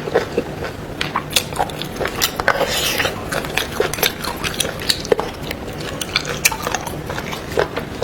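Close-miked eating of boiled beef bone marrow: wet chewing and biting, with irregular small clicks and knocks like cutlery or bone against a dish.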